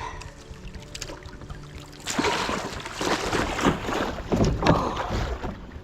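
Water splashing and churning beside a kayak as a large hooked Murray cod thrashes at the surface, starting loud about two seconds in and going on irregularly.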